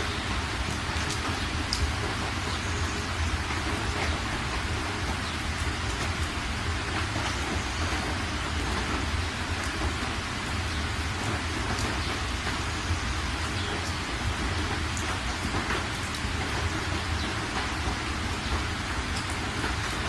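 Steady rain falling: an even hiss with scattered light ticks and a low rumble underneath.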